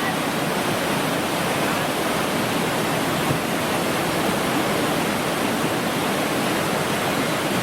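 Whitewater rapids of a slalom canoe course, rushing steadily.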